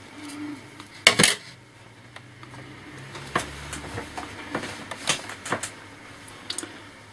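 Clicks and taps of a laptop being taken apart by hand. There is a sharper knock about a second in, then a scattered run of light clicks and taps from plastic parts, screws and a small screwdriver.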